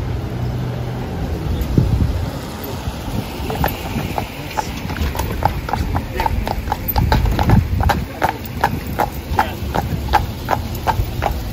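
Hooves of a carriage horse clip-clopping on an asphalt street, starting about three seconds in and growing louder as the horse draws near, at a steady pace of about three strikes a second.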